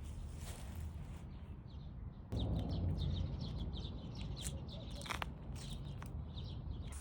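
Many short, high bird-like chirps repeating several times a second over steady outdoor background noise, which jumps suddenly louder about two seconds in.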